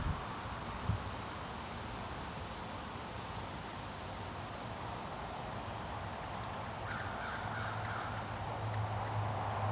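Rural outdoor ambience: a steady background hiss with a few faint, high bird chirps, and a short series of bird calls about seven seconds in. A low engine hum from a distant vehicle builds toward the end.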